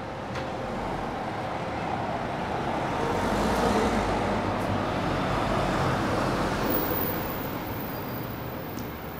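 A motor vehicle driving past on a city street. Its engine and tyre noise swells over the first few seconds, is loudest in the middle and fades away near the end.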